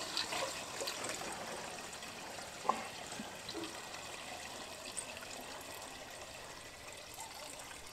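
Liquid pouring from a bucket into a backpack sprayer's plastic tank, a steady trickle that slowly fades, with a single light knock about three seconds in.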